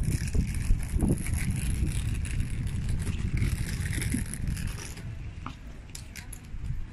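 Wheeled suitcase rolling over cobblestone pavement: a steady low rumble with scraping, easing off about five seconds in.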